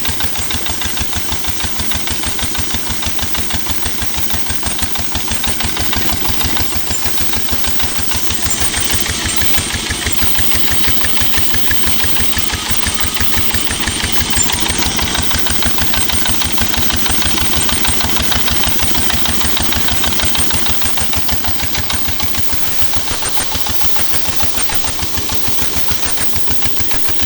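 Old engine running steadily with a fast, even firing beat.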